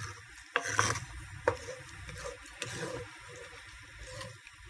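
A wooden spoon stirring a thick cream, spinach and grated Parmesan sauce in a Dutch oven, with soft scraping and a few sharper knocks of the spoon against the pot.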